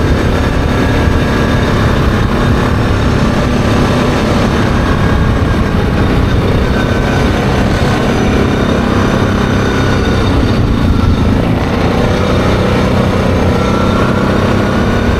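ATV engine running steadily at cruising speed, under a constant rush of road and wind noise.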